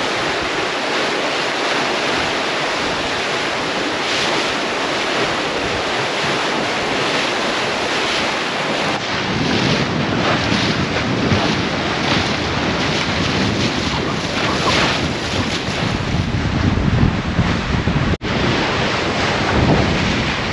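Sea water rushing and splashing along the hull of a sailing Leopard 45 catamaran, with wind buffeting the microphone. About nine seconds in the low rumble grows heavier, and near the end the sound drops out for an instant.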